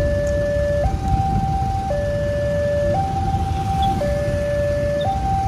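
Railway level-crossing warning alarm sounding a two-tone signal, a lower and a higher note alternating about once a second while the barrier is down for a passing train, over a low rumble of traffic and the train.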